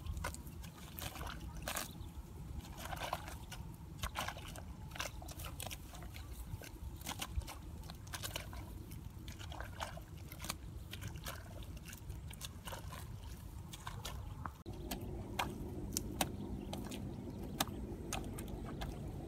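Hoe chopping and scraping into wet mud, with irregular sharp strikes and the squelch and slosh of muddy water as the soil is dug and pulled out by hand. A steady low background noise grows louder about three quarters of the way through.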